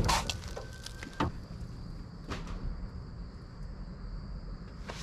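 A few short knocks as a large off-road tire and wheel are pulled off the hub's lug studs and set down, over a faint, steady, high insect drone.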